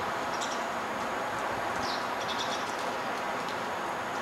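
Steady city background noise, with a few short high bird chirps, once near the start and a cluster about halfway through.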